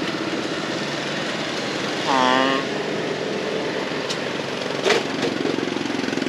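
Steady street-traffic noise with motorbike engines running, a short voice call about two seconds in and a sharp click near the end.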